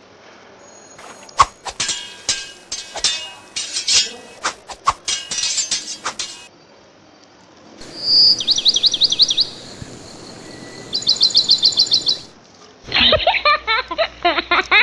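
A string of edited-in sound effects. First comes a run of clinking, ringing clicks. Then rapid high chirps like cartoon bird tweets, and near the end a short burst of pitched notes.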